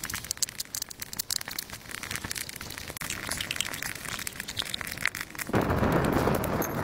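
Scattered sharp clicks and crunches as a knife cuts into and hollows a small red pumpkin, then about five and a half seconds in a wood fire burning in a pit starts up: a dense, steady crackle, the loudest part.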